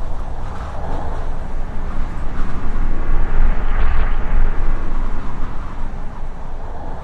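Wind rushing and buffeting, heavy in the low end, swelling to its loudest about halfway through and easing off toward the end.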